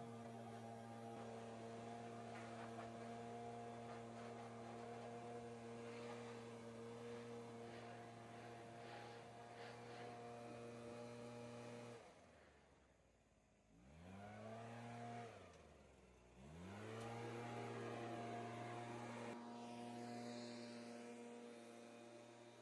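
Small engine of lawn equipment running steadily and faintly. About halfway through it throttles down almost to nothing, then revs back up in two rising glides and settles again at its steady speed.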